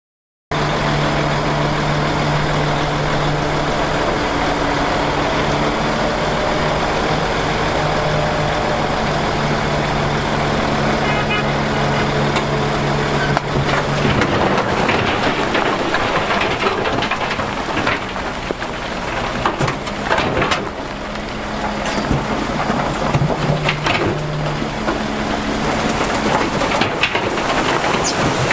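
Diesel engine of heavy earthmoving machinery running steadily. About halfway through, the steady tone gives way to a noisier, uneven sound with scattered knocks and rattles.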